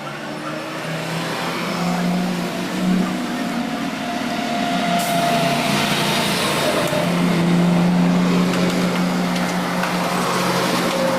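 A motor-driven machine running steadily with a noisy, abrasive layer over its hum that grows stronger about halfway through.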